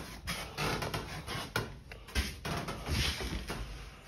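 Irregular knocks, scuffs and rustling of someone moving about a cluttered shed.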